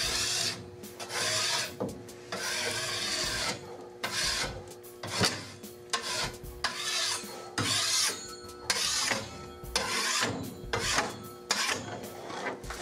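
Metal spatula blade scraped back and forth across weathered plywood, scraping off dirt in a series of irregular strokes, some short and some over a second long. A faint steady electrical hum from an overhead shop light runs underneath.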